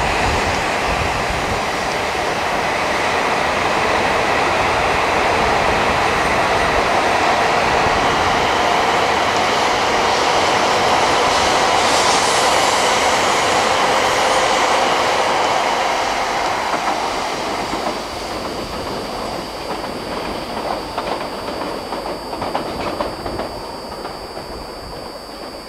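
Coupled E5 and E6 series Shinkansen train running past along the platform track: a steady rush of wheels on rail that builds, then drops away after about 16 seconds.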